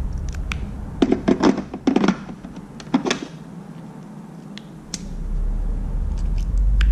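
Short plastic and glass clicks and knocks as bulbs are twisted and pulled out of and pushed into the sockets of a truck tail light housing. There is a cluster of them from about one to two seconds in and another at about three seconds, and a low steady hum comes in about five seconds in.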